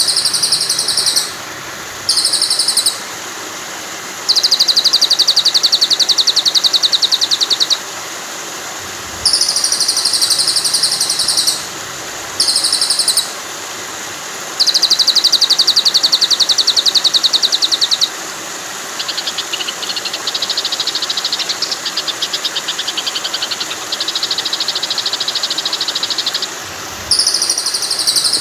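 Looped recorded birdsong for tutoring a white-rumped shama: short high call phrases about a second long repeating, broken by two longer rapid buzzing trills and a softer fast trill later on. Under it runs a steady hiss of flowing water.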